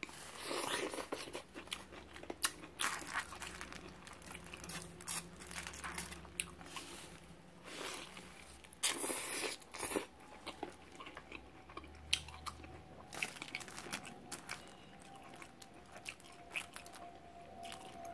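Close-miked eating: crunchy bites into fried shrimp and a seafood burrito, and chewing, with many small crackles and mouth clicks. The loudest crunching comes about a second in and again around nine seconds in.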